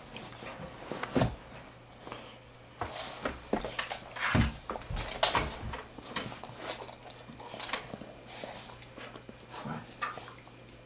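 Two dogs play-fighting on a padded dog bed: irregular scuffling and rustling of the bedding as they wrestle and mouth each other, with short dog noises among the scuffles, loudest around the middle.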